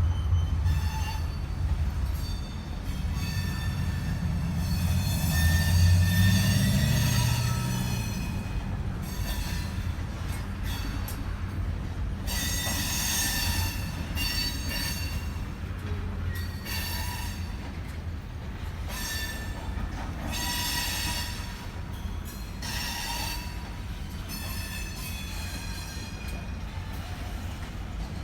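Freight train cars rolling past, a steady low rumble with steel wheels squealing against the rails in repeated high screeches. It sounds like the train is slowing toward a stop.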